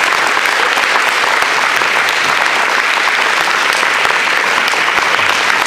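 Wedding guests applauding steadily, a dense even clapping.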